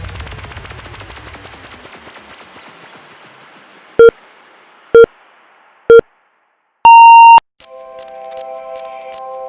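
Workout interval timer counting down: three short beeps a second apart, then one longer, higher beep. Background music fades out before the beeps, and a new music track starts right after the long beep.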